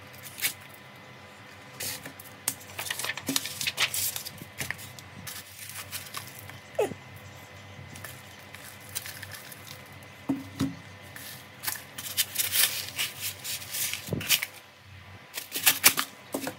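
Handling noise of a dirt-caked phone being lifted out of a foam-lined cardboard box: scattered rustles, scrapes and crumbling clicks, with a few short falling squeaks.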